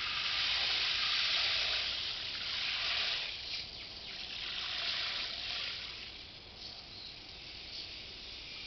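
Dry basmati rice grains poured in a thick stream into a metal pot of water, a hissing rush that swells twice and fades near the end as the pot fills.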